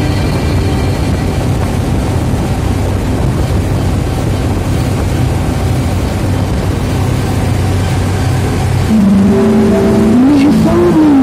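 Gurjeet 975 combine harvester's engine running steadily as it drives along the road, heard from inside the cab. About nine seconds in, a louder wavering melody comes in over the engine.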